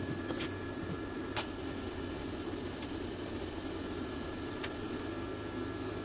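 Welding machine running between welds: a steady fan hum with a faint high whine, and two light clicks about half a second and a second and a half in.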